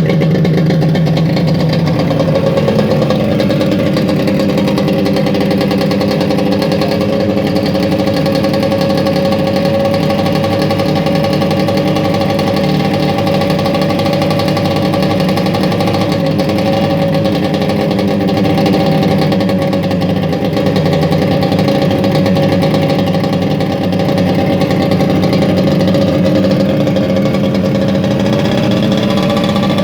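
The 260cc engine of a Hydro Force jet surfboard running steadily on a test run, with a slight change in engine speed early on and a small rise near the end.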